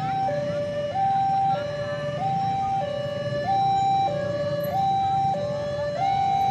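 Electronic two-tone warning siren alternating evenly between a lower and a higher note, each held a little over half a second, over a low rumble.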